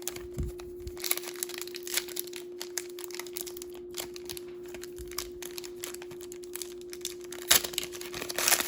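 Packaging of a small toy pack crinkling and tearing as it is opened by hand: a dense run of irregular small crackles, louder near the end.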